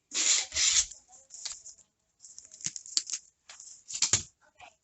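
Hands handling PC parts and packaging: a loud rustle and scrape in the first second, then scattered rustling with a few sharp clicks.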